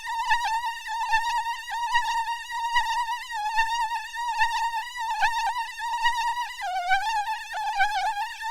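Mosquito buzzing close up: a thin, high whine that wavers a little in pitch and swells and fades every second or so, dipping slightly lower about two-thirds of the way through.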